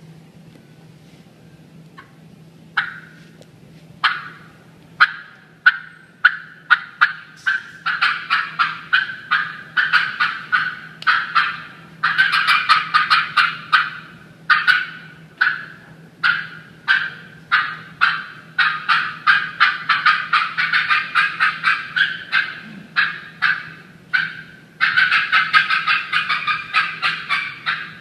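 Turkey hen cutting imitated on a mouth-blown turkey call: an old, aggravated hen answering an intruder. Sharp, loud clucks begin about three seconds in, sparse at first, then pile into fast, irregular runs.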